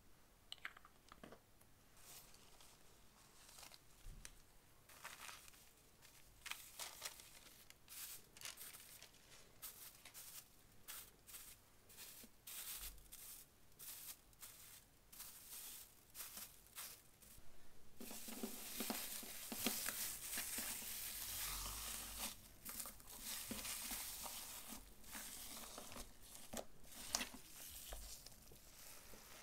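Gold foil crinkling and crackling under fingers as it is pressed onto slime, in scattered small crackles. About two-thirds of the way through, the crackling turns denser and louder as the foil-covered slime is kneaded.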